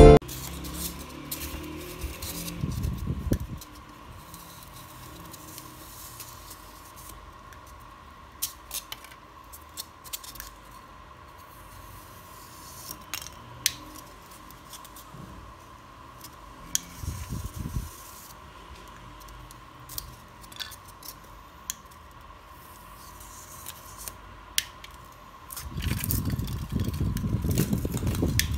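White polystyrene foam being handled and cut on a tabletop with a homemade hot wire cutter: scattered small crackles and clicks, with stretches of rubbing and handling noise, the longest near the end. A faint steady high whine runs under it.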